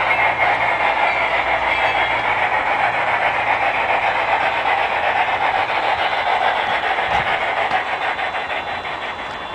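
Large-scale model steam locomotive running through a hand-spiked switch: a steady rushing hiss with a fine, rapid ticking texture, easing off a little near the end.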